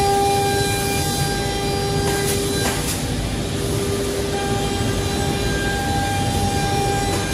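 Holztek D2400-CNC door lock and hinge boring machine running, a steady mechanical hum with a whine that drops out for a moment about three seconds in, and a couple of light clicks.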